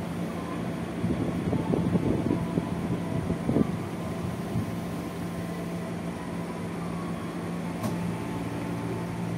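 Interior sound of a JR 205 series electric train motor car running slowly as it brakes into a station: steady low hum of the equipment under the floor with rumble of wheels on rail. Louder rattling comes about two to four seconds in, and there is a single click near the end.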